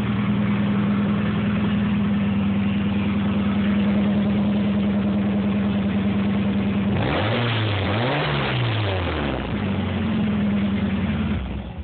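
Nissan 240SX engine idling steadily, given one rev about seven seconds in that rises and falls back to idle, then switched off near the end.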